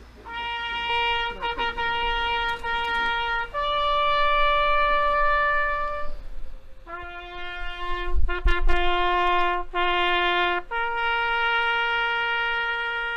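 A lone trumpet playing a slow commemorative call in long held notes: a sustained note, a higher one, then a lower note sounded in several short blasts, and a final long held note. A few low thumps on the microphone come about eight seconds in.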